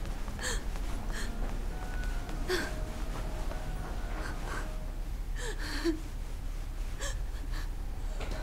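A person gasping and breathing hard in short, sharp breaths, with small whimpering sounds in distress, over a steady low hum.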